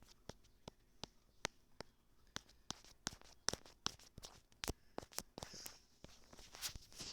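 Faint, irregular clicks and taps, one to three a second, with a few brief soft rustles.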